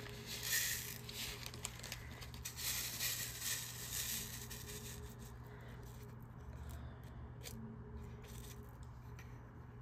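Small plastic bags of diamond-painting drills being handled, crinkling and rustling with scattered small clicks. The sound is busiest in the first half and fainter later.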